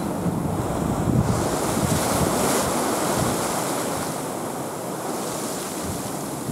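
Wind buffeting the microphone over choppy sea water washing and lapping. A louder hiss swells about a second in and eases off by about four seconds.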